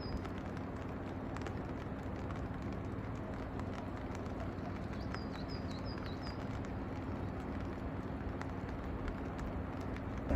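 Outdoor ambience: a steady background hiss with scattered light ticks, and a short run of four high chirps about five seconds in.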